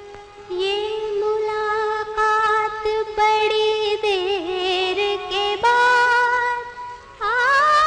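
A woman singing a slow Hindi film-song melody in long held notes, with quick sliding ornaments between them and the pitch stepping upward a few times.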